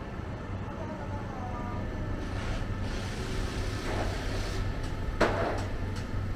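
City street traffic: road vehicles passing with a steady low hum, and one short sharp knock about five seconds in.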